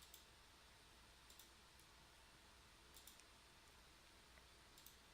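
Faint clicks of instrument controls being pressed, singly and in quick pairs every second or so, over near-silent room tone with a low hum.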